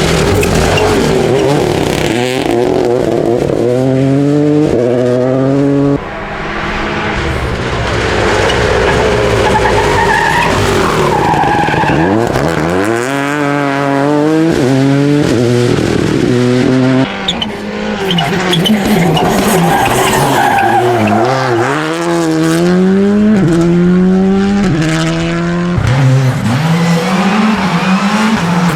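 Rally car engine under hard acceleration: the revs climb again and again and drop back at each gear change or lift, with tyre noise underneath.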